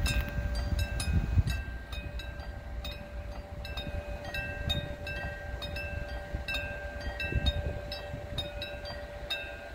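Railway level-crossing warning bell ringing in rapid repeated strikes, a few a second, with the barriers down to signal an approaching train. A low rumble runs underneath and swells briefly about a second in and again near the end.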